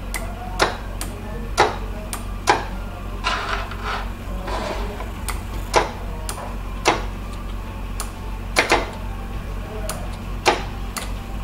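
An Arduino relay module and a 12 V solenoid water valve clicking on and off again and again as the ultrasonic sensor detects a hand and then loses it. About a dozen sharp clicks come at uneven intervals over a steady low hum.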